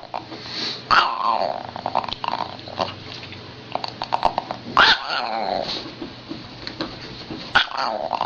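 A dog growling, with sharp yelps or cries about a second in, near five seconds and again near seven and a half seconds, and quick scrabbling clicks in between.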